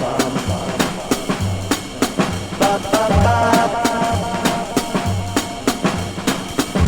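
Instrumental stretch of an indie-pop song: a drum kit keeps a steady beat over repeating bass notes and sustained chords, with no singing.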